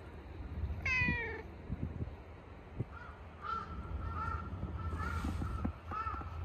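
A cat gives one short meow, falling in pitch, about a second in. From about three seconds on, crows caw repeatedly in the background.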